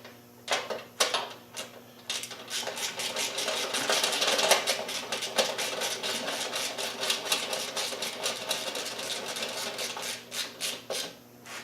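Ratchet wrench clicking rapidly and steadily as a bolt is run in, after a few separate clicks at the start.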